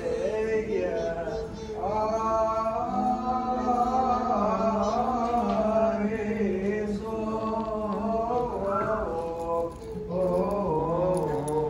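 Male voices chanting a liturgical church hymn, with long held notes and slow melodic turns.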